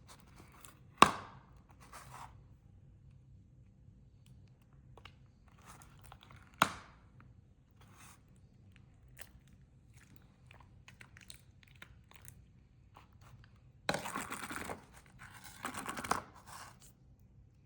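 Hands kneading and stretching sticky homemade slime made from glue, lotion and contact solution, giving wet clicks and crackles. There are two sharp snaps, one about a second in and one near the middle, and two longer spells of louder crackling squishing near the end.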